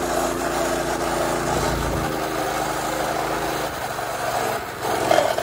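Predator 212cc single-cylinder four-stroke engine on a mini bike running at a steady pace under riding, with rushing noise from the ride. The engine's steady note drops away about two-thirds of the way in, and near the end come a couple of loud knocks as the bike goes over a bump and gets air.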